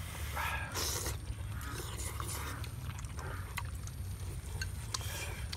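A person slurping hot rice porridge with snakehead fish from a bowl in short sucking pulls. Sharp little clicks of chopsticks against the ceramic bowl come in the second half.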